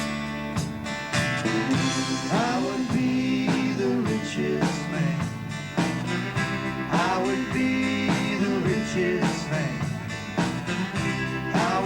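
Live country band playing an instrumental break between verses: guitars over a steady beat, with a lead instrument playing bending melodic phrases.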